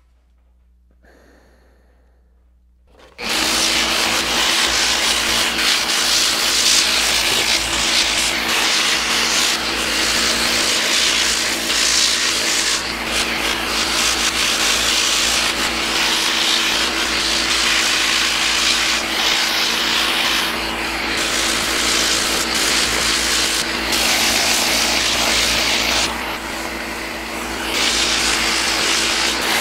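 A random orbital sander with a 60-grit disc starts about three seconds in and then runs steadily, its motor humming under the rasp of the pad grinding down cured epoxy on a wooden kayak seat to remove fish-eye dimples. The sanding eases briefly a few seconds before the end.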